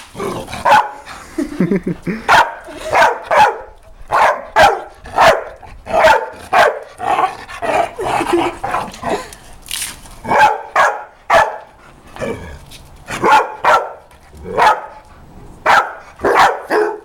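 A dog barking over and over, a sharp bark every half second to second, in runs with short pauses between.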